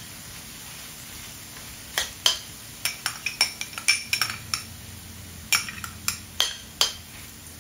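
A metal spoon clinking against metal cookware while cooking: a quick, uneven run of sharp, ringing clinks starting about two seconds in and lasting until near the end.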